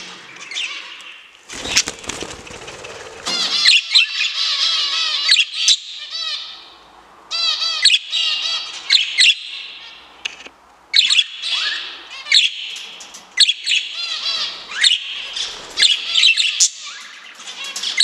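Budgerigars chattering and warbling in a dense run of short, repeated chirps and trills. A flurry of wing flapping comes about two seconds in.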